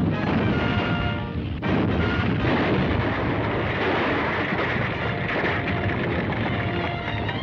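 Orchestral cartoon score with held brass notes over a heavy, continuous rumble and crashing of an earthquake sound effect.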